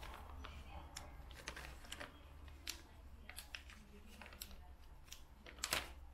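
Small clear plastic parts bag being handled and opened by hand: faint, scattered crinkles and clicks, with a louder crackle near the end.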